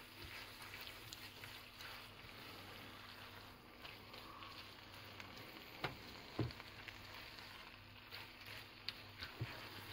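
Faint sizzle of a rice and bean mix cooking in a non-stick frying pan while it is stirred with a spatula, with light knocks of the spatula against the pan twice about six seconds in and once near the end.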